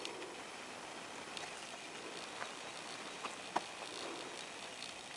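Steady outdoor background noise with a few faint short clicks, one a little clearer about three and a half seconds in.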